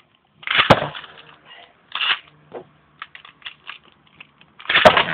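Beyblade Burst spinning tops launched into a plastic stadium: two loud ripping launches with a sharp clack as a top lands, one about a second in and one near the end. Between them come a few light clicks and clatters as the spinning top knocks around the stadium.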